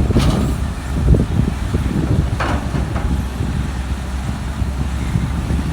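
Heavy machinery engine running steadily with a low rumble, with two brief hissing gusts or scrapes, about a quarter second and about two and a half seconds in.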